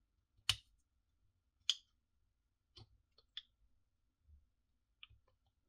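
A handful of faint, sharp clicks and taps from hands handling the dismantled brushless motor and gearbox of a Milwaukee M18 FUEL hammer drill, plastic and metal parts knocking as they are turned and fitted; the two loudest come about half a second and just under two seconds in.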